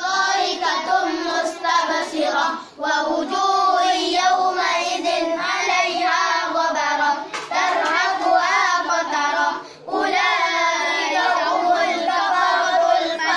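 Children reciting memorised Quran verses aloud in a melodic chant, with short pauses for breath about 3 s and 10 s in.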